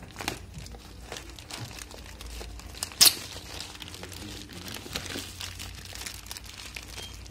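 Black plastic parcel wrapping being torn open and crumpled by hand, with irregular crackling throughout and one sharp, loud rip about three seconds in.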